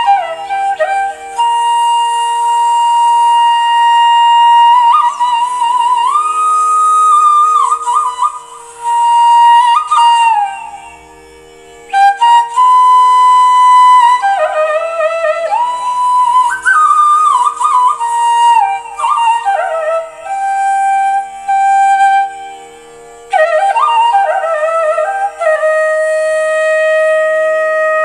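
Background instrumental music: a slow melody of long held notes with sliding ornaments over a steady drone, pausing briefly twice.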